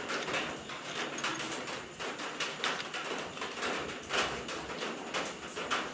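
Irregular light clicks and taps of hands handling the metal fittings and bolts around a motorcycle's rear brake master cylinder, over a steady background hiss.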